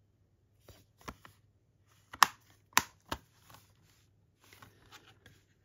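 Plastic clicks and knocks from handling an 11 mm black Blu-ray keep case: a few light taps, then two sharp, louder clicks near the middle and one more just after, followed by softer rustling and ticking near the end.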